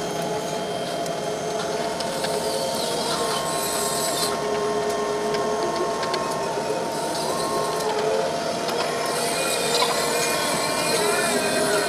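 Luffing tower crane's drive machinery running with a steady whine, several tones that shift and step slightly in pitch as the crane moves.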